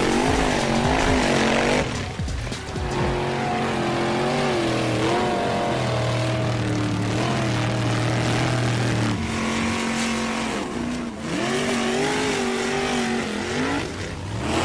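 Race-car engine sound revving, its pitch rising and falling over and over above a steady low drone, with music playing.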